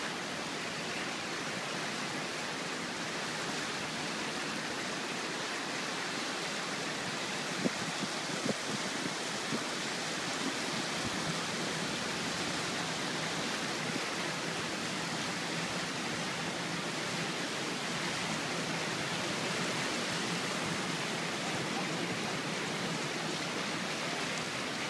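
Steady rush of flowing floodwater, with a few light knocks about eight seconds in.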